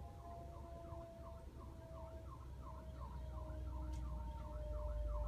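Emergency vehicle siren in a fast yelp, sweeping rapidly up and down about three times a second and growing louder, over a low rumble that builds toward the end.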